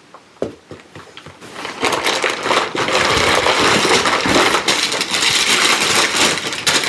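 Packing material in a box crinkling and rustling as items are rummaged out. There are a few scattered clicks at first, then a dense, continuous crinkling from about two seconds in.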